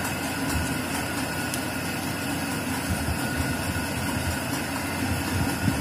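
Steady mechanical background hum, with a few faint soft knocks of handling.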